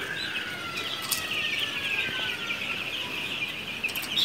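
A shed full of young broiler chickens peeping and chirping all at once, a dense continuous high-pitched chatter.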